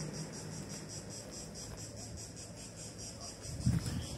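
Crickets chirping in a fast, even pulsing rhythm, with a faint low hum beneath.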